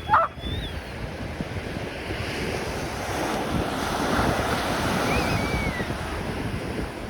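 Surf washing on a beach, with wind buffeting the microphone; the wash swells and peaks about halfway through. A short, high-pitched cry comes right at the start, and a faint falling call about five seconds in.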